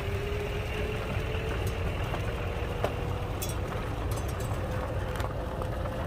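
A vehicle rolling slowly over a bumpy road: a steady low rumble with a thin whine that slowly rises in pitch, and scattered sharp clicks and rattles.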